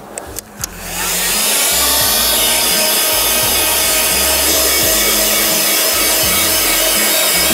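Hot air gun switched to its higher heat setting: a few clicks, then about a second in its fan spins up with a rising whine and settles into a steady, loud rush of blowing air.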